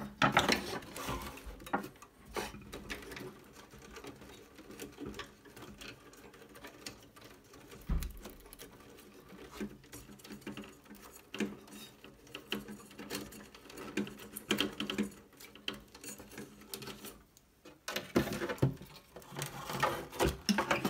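Hands working wires and plastic connectors loose inside an opened CRT monitor: irregular small clicks and rustles, with a dull knock about eight seconds in and busier handling near the end as the circuit board is shifted.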